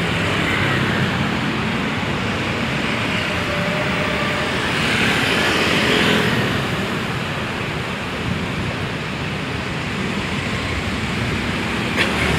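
Steady road traffic of cars and motorcycles passing close by, with a louder swell as a motorcycle goes past about five to six seconds in.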